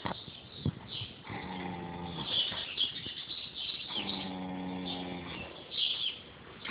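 A sleeping dog snoring: two long, low snores, one starting about a second in and the other about four seconds in, each lasting about a second and a half.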